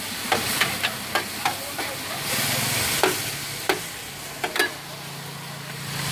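Rice pin noodles and bean sprouts sizzling in a large flat steel wok, with about ten sharp, irregular metallic taps and scrapes of a spatula against the pan. The hiss swells briefly about two seconds in.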